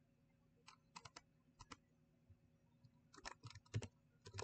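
Faint clicking of typing on a computer keyboard: a few scattered keystrokes, then a quicker run of them near the end.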